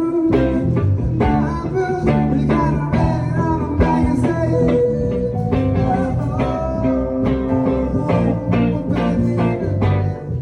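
A live band playing a blues-rock tune: guitar and bass over a steady drum beat.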